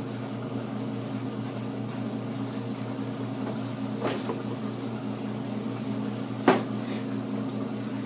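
Washing machine running with a steady hum, set to spin fleece on a delicate cycle; two sharp knocks, the second louder, come about four and six and a half seconds in.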